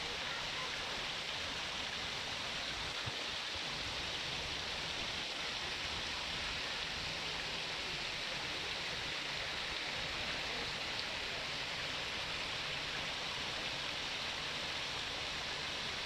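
Steady splashing of water falling into a koi pond from its water feature, a constant rushing hiss with no change throughout.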